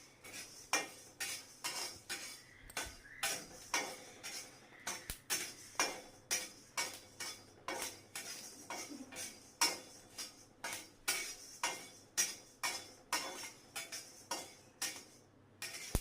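Sharp pops and clinks in a metal pan, about two a second, as small kernels are popped into popcorn.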